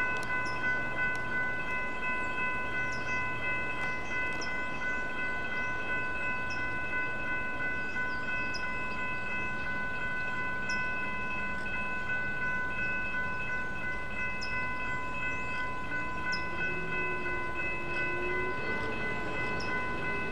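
Railroad crossing warning bell ringing steadily while the crossing signals are active for an approaching train.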